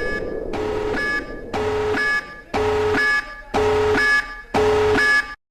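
Electronic emergency alert alarm tone pulsing about once a second: a buzzy beep with a low and a high pitch together. It cuts off suddenly near the end.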